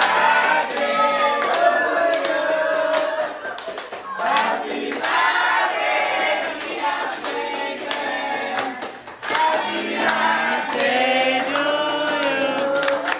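A small group of voices singing a birthday song together, with hand clapping.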